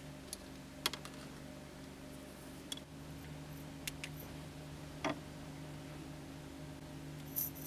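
A handful of faint, scattered light metallic clicks as fine silver wire is wound by hand into a tight coil around a round bar, over a steady low hum.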